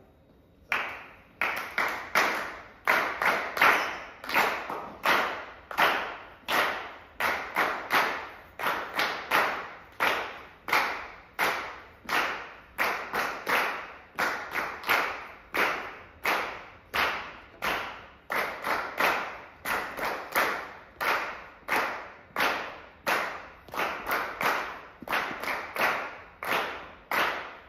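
A group of people clapping their hands together in a steady rhythmic pulse, about two claps a second, starting just under a second in.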